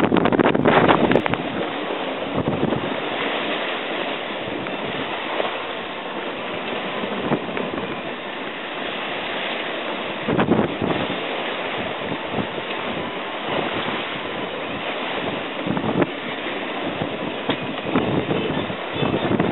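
Wind buffeting the microphone over the rush and splash of sea water along the hull of a small sailing cruiser moving fast under sail through choppy water. The noise is continuous, with louder surges about ten seconds in and again near the end.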